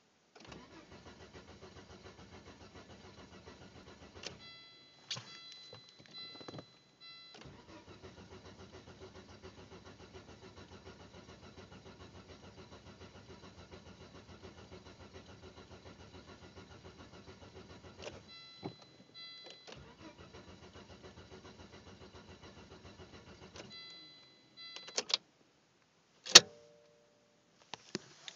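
Engine cranked on its starter motor in several long attempts, turning over with an even pulsing beat but never firing: a crank-no-start. A steady high tone sounds in the pauses between attempts, and a single sharp knock, the loudest sound, comes near the end.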